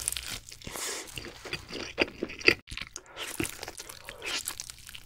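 Biting into and chewing a slice of cheese pizza close to the microphone, with crisp crunches from the bread. The loudest crunches come about halfway through.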